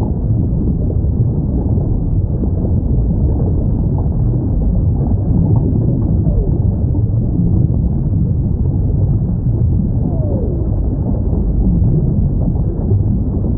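Underwater recording of whale calls: a few faint falling moans, one about six seconds in and another about ten seconds in, over a steady low ocean rumble.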